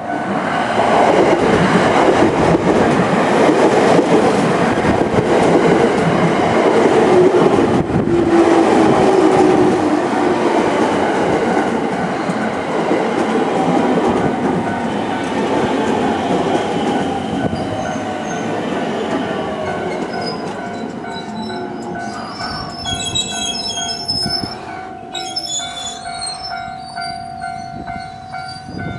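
Electric commuter train pulling into the station: loud running and wheel noise that slowly fades as the train slows, with brakes squealing in short high bursts near the end.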